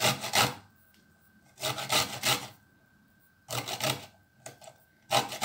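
Knife chopping beetroot on a chopping board: quick runs of rapid strokes in short bursts, with brief pauses between them.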